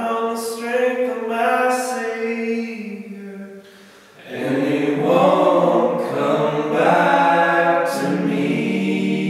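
Group of men singing a cappella in close harmony, with no instruments. One phrase fades out after about three and a half seconds. After a short breath, a second phrase settles into a long held chord.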